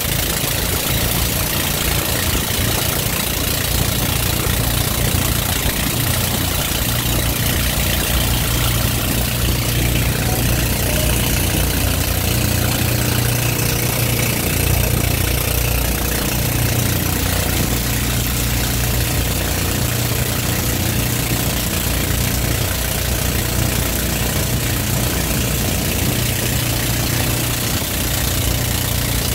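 Outrigger pumpboat's engine running steadily under way, a loud low drone with a steady hiss over it.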